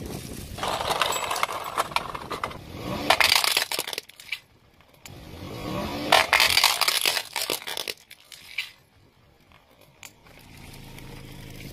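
A car tyre rolling onto a plastic toy car and crushing it: grinding crunch with sharp cracks of breaking plastic, heard twice, loudest about three and six seconds in. It goes much quieter for the last few seconds.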